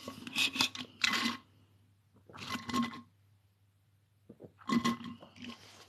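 Clinking and scraping of small hard objects being handled, in three short bursts with quiet gaps between them.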